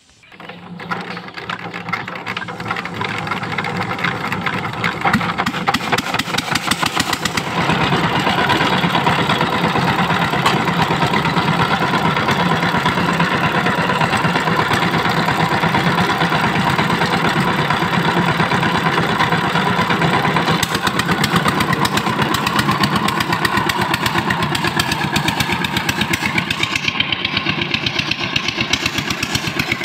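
A walk-behind power tiller's single-cylinder diesel engine starts and runs with a dense, rapid knock, growing louder over the first few seconds. It steps up again about seven seconds in and then runs steadily as the tiller pulls through wet paddy mud.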